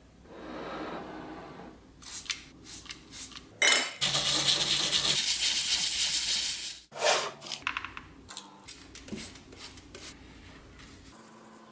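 A brush scrubbing hard at an old toy truck wheel for about three seconds in the middle, a dense rasping scrub. Around it, short knocks and clicks of the wheels being handled on a wooden bench, with a sharp knock just before the scrubbing and another just after.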